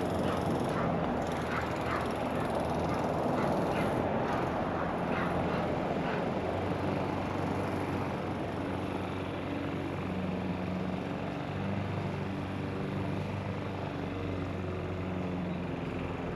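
A steady engine drone with a low hum that shifts slightly in pitch partway through, and short repeated sharp sounds over it during the first few seconds.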